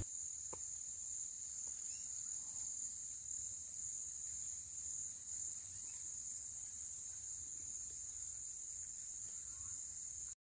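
A steady, high-pitched chorus of insects chirring in the plantation, with a few faint ticks. It cuts out briefly near the end.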